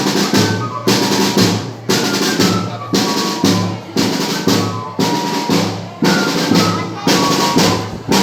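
Banda de pífanos playing: fifes carrying a melody of short high notes over bass drum and snare drum, with a heavy beat about once a second.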